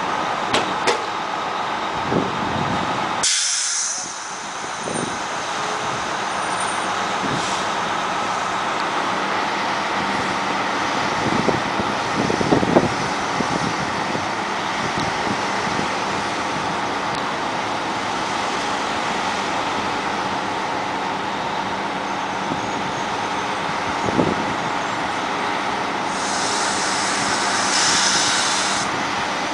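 Diesel engines of Coach USA Shortline motor coaches idling and moving steadily, with a short burst of air hiss a few seconds in and a longer air-brake hiss near the end. A few knocks around the middle.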